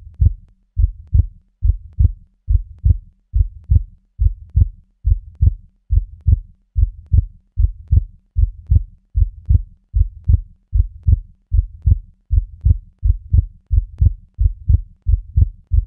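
Heartbeat soundtrack: low double thumps, lub-dub, repeating at an even pace of about three beats every two seconds.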